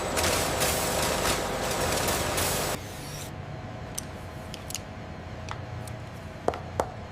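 Factory machinery running with a loud, steady hiss that drops away suddenly about three seconds in. A quieter machine hum follows, with a few scattered sharp clicks and taps, the loudest two close together near the end.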